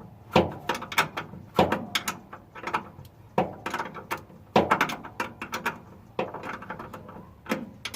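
Repeated sharp clicks and clanks of hand tools and metal parts being handled while disconnecting wires and nuts from a truck's starter solenoid, some knocks ringing briefly.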